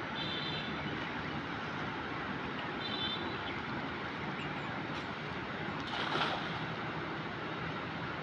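Steady rushing wind and river water noise, with a brief splash about six seconds in as a thrown cast net lands on the water.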